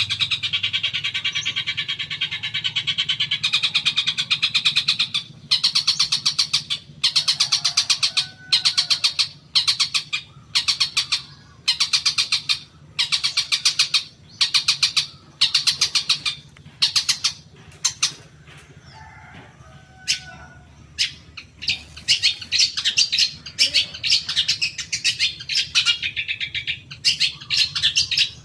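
Long-tailed shrike (cendet) giving harsh, rapid chattering calls. A continuous run at first, then separate bursts of about a second each, a short pause past the middle, and continuous chatter again near the end. A lure call meant to make other cendets answer.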